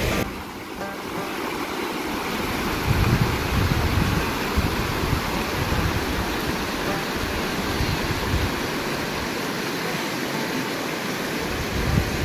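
Mountain river rushing steadily over a stony bed, with a few brief low thumps.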